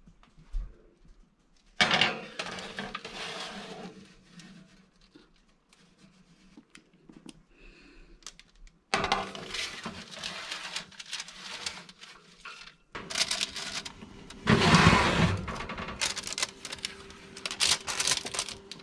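Metal baking tray and oven rack clattering and scraping as trays of cookies are slid into and handled in the oven, in several short stretches that start abruptly, with a low steady hum underneath.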